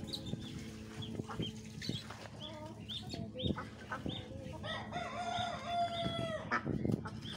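A rooster crows once, a long call about five seconds in, among repeated high peeping from young birds. A shovel digging into dry earth gives a few short scraping strikes.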